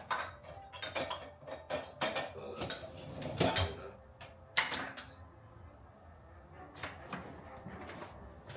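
Dishes and cutlery clinking and clattering as they are handled, a quick run of knocks and clinks with one sharper knock about four and a half seconds in, then only a few faint knocks.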